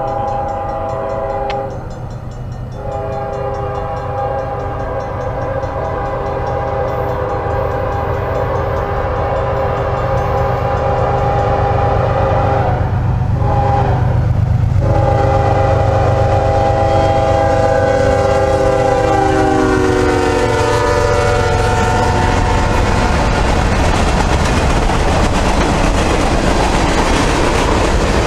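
A Norfolk Southern GE ES44DC freight locomotive's Nathan K5HL five-chime horn sounds long blasts, a short one, then a final long blast that drops in pitch as the locomotive passes at speed: the long-long-short-long grade-crossing signal. The horn stops about 22 seconds in, leaving the diesel rumble and the clickety-clack of freight cars rolling by.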